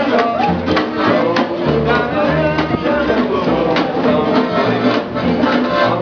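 Acoustic swing band playing, with plucked guitar strumming over a bass line that steps from note to note about twice a second.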